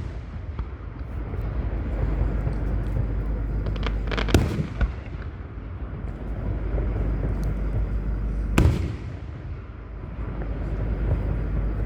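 Aerial firework shells bursting: two sharp booms about four seconds apart, with scattered smaller pops and crackles between them, over a steady low rumble.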